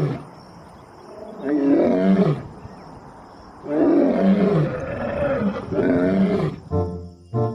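Male lion roaring: a short roar about a second and a half in, then a longer run of roars in several pulses from a little under four seconds to near the end.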